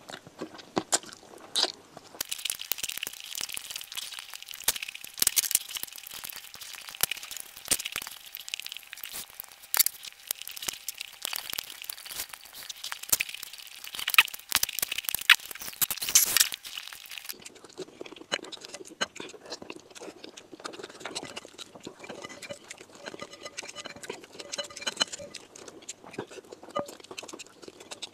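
Close-miked eating by hand, rice and chicken: from about two seconds in, a long stretch of dense crunching and crackling that stops sharply at about seventeen seconds, then softer wet squishing and chewing of the food through to the end.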